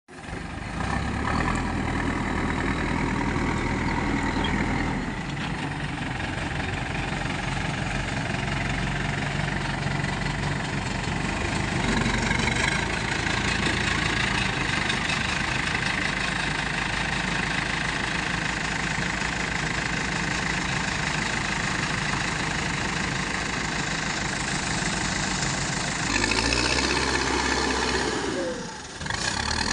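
Backhoe loader's diesel engine running, its speed and load rising and easing off several times, with a brief drop just before the end.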